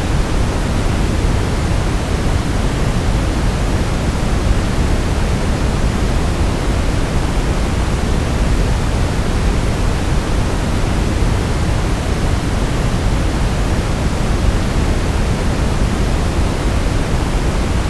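Steady brown noise: an even, unbroken rushing hiss heaviest in the low end, with no change throughout.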